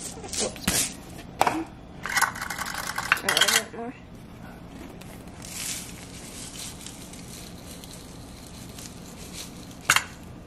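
Dry panko breadcrumbs poured from a canister into a measuring cup: a few taps and clicks, then a rattly patter of crumbs for a couple of seconds, then little until a sharp click near the end.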